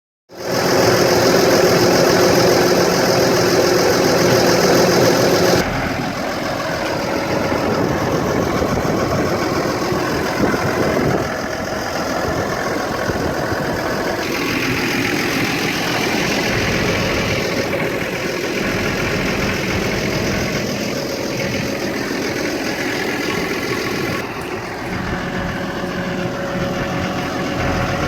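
Case IH Puma 155 tractor's six-cylinder diesel engine running steadily at idle. The sound changes suddenly a few times, first about six seconds in, as it is heard from different positions.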